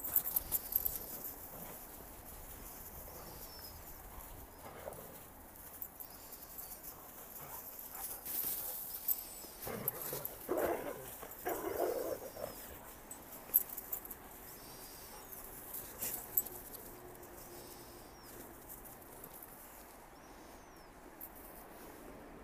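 A dog bounding and playing in deep snow, its paws crunching in quick steps about the first second and now and then after. About ten seconds in come a couple of short dog vocal sounds.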